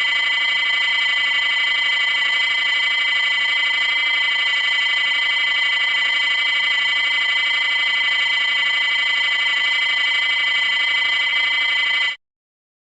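A steady, unchanging electronic buzzer tone, held for about twelve seconds before it cuts off suddenly.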